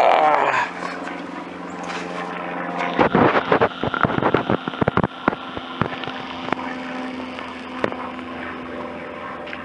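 Propeller airplane flying over, a steady engine drone. A cluster of sharp knocks and clicks breaks in for a couple of seconds around the middle.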